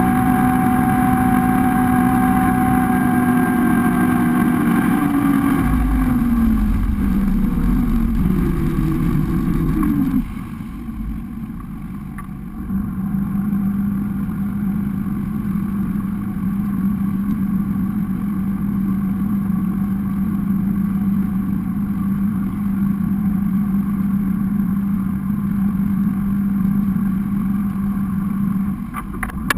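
Engine of a rigid inflatable boat running at speed, with water rushing past the hull. About a third of the way in, the engine note wavers and falls and the sound drops away briefly. It then settles into a steady, slightly lower drone.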